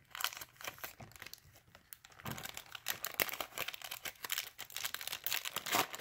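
Foil Yu-Gi-Oh! booster-pack wrappers crinkling and tearing as packs are ripped open by hand. The crackling thins out for a moment about a second in, then picks up again and grows busier.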